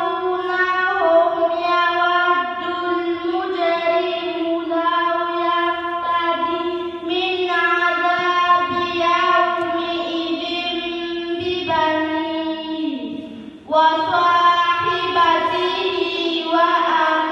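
Quran recitation in a melodic, chanted style by a single high-pitched voice. The reciter holds long, drawn-out notes, with a brief breath pause about three-quarters of the way through before the next phrase.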